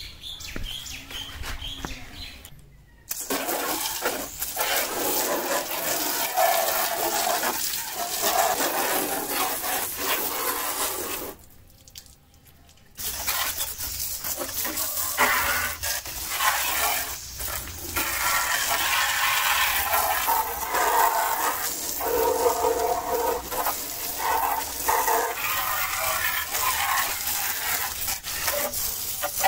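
Water from a hose-fed water gun spraying onto a motorcycle: a steady hiss and splash that breaks off briefly twice.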